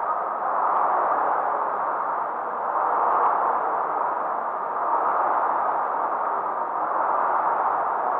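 Air-resistance rowing machine's fan flywheel whirring as it is rowed, the rush of air swelling with each stroke about every two seconds.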